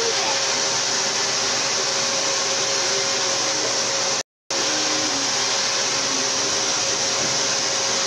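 Vacuum cleaner running steadily: a loud rushing hiss with a constant whine, cut off for a split second about halfway through.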